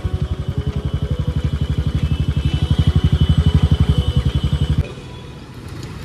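Royal Enfield Classic's single-cylinder engine running at low speed, with a steady rapid beat of exhaust pulses that grows a little louder midway. It cuts off suddenly about five seconds in as the engine is switched off.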